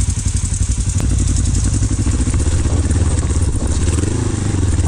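Kawasaki KLE500 parallel-twin engine running as the trail bike pulls away up a rocky track.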